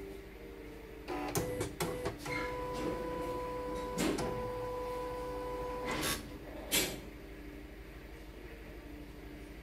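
CNY portable embroidery machine starting up: a few sharp clicks, then a steady mechanical whine lasting about three and a half seconds, broken once by a click, and two clacks as the whine stops.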